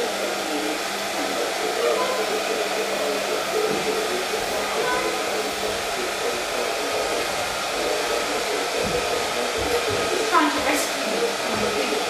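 Hair dryer blowing steadily. A few brief rising and falling higher sounds break through about ten seconds in.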